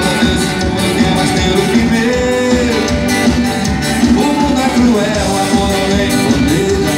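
Live band playing a Brazilian popular (MPB) song, with acoustic guitar, electric guitar, keyboard and drums.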